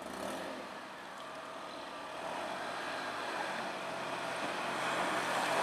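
A vehicle approaching, its noise growing steadily louder, with a low engine hum coming in near the end.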